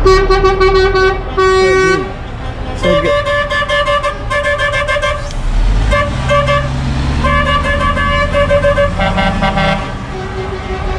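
Passing lorries sounding their horns, one loud blast after another, at two or three different pitches, some held for two to three seconds. Big truck engines rumble underneath.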